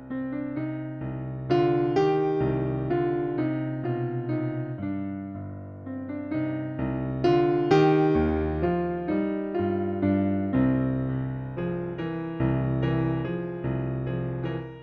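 Background music: a gentle melody played on electric piano over sustained low bass notes.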